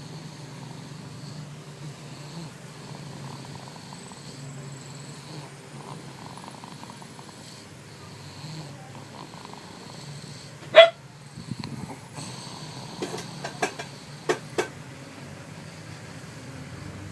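A sleeping baby snoring, a steady low rumbling breath. About eleven seconds in comes one brief, loud, high-pitched sound, and a few seconds later several short sharp clicks or taps.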